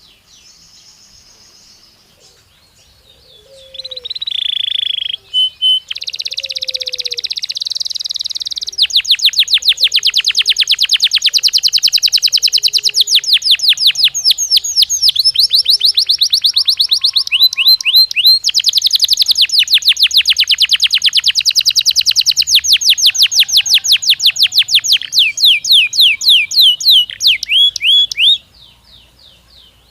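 Domestic canary (Belgian canary) song: after a few quiet seconds it sings long runs of loud, very fast trills and rolls, which break off suddenly near the end.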